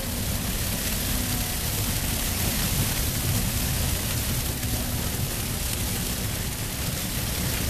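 Vervaet 625 self-propelled sugar beet harvester lifting beet: a steady mechanical rumble with a constant hiss, from the machine's engine and its lifting wheels working through the soil.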